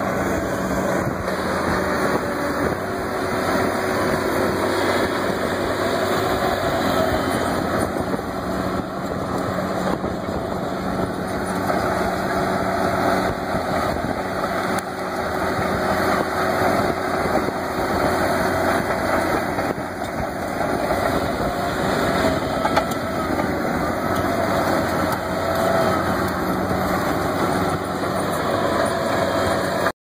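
Diesel engine of a John Deere crawler dozer running steadily under load as it pushes a root rake through cleared ground.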